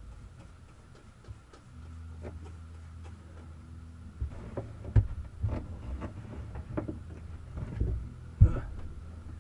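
Scattered knocks and clunks of objects being handled while working in a boat's engine compartment, the loudest about five seconds in and again near the end, over a low steady hum.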